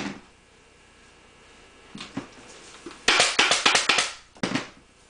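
Pneumatic staple gun firing staples through Dacron batting into a wooden seat board: a fast run of about eight sharp shots in roughly a second, then one more shot half a second later.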